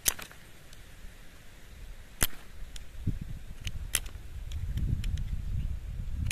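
Steel knife blade scraping and clicking against the face of a submersible motor thrust bearing during a scratch test: a handful of sharp clicks, the loudest right at the start and about two and four seconds in, with a low rumble building from about three seconds on.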